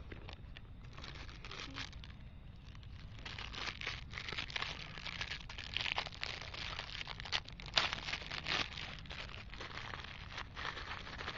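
Plastic packaging crinkling and rustling in quick, irregular crackles that get busier from about three seconds in, with low thumps of handling.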